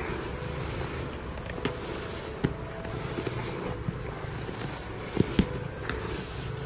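Grooming glove rubbing vigorously through a cat's fur: a steady rustling, with scattered light clicks from handling.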